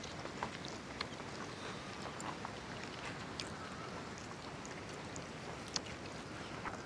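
Quiet, scattered clicks, smacks and rustles of several people eating rice with their fingers off banana leaves, over a steady low hiss.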